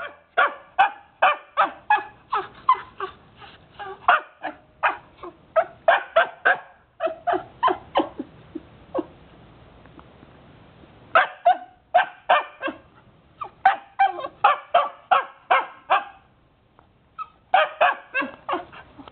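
A Jomon Shiba puppy barking in quick, high yips, about four a second, in three runs with short pauses after about eight seconds and again near the end.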